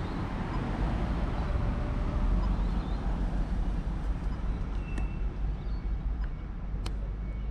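Passing car traffic: cars driving through the intersection close by, giving a steady rumble of engines and tyres. A few short clicks come in the second half.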